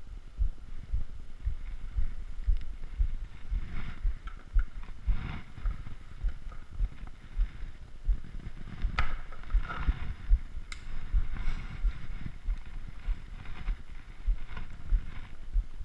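Handling noise from a GoPro camera being moved about by hand: irregular rubbing, scraping and a couple of sharp clicks, over a regular run of low thumps about twice a second.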